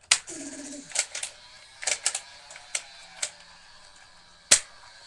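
Nerf dart blaster being primed and fired in quick succession: a string of about nine sharp plastic clicks and snaps, the loudest near the end.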